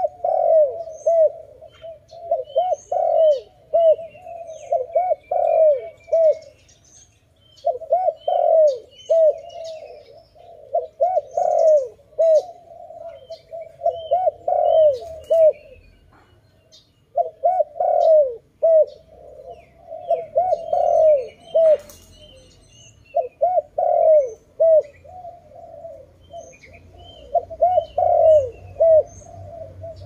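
Spotted dove cooing in repeated phrases of short, rolling coos, with brief pauses between them. Small birds chirp faintly and high in the background, and there is a single sharp click about two-thirds of the way through.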